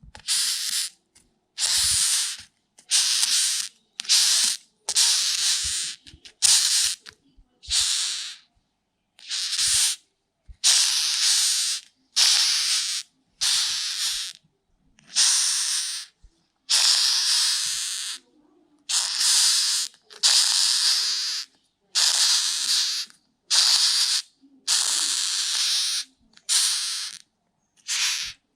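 Rhinoceros beetle making its rasping hiss in a long series of separate bursts, each about half a second to a second and a half long, at roughly one a second with short silent gaps. A few faint low knocks fall between the bursts.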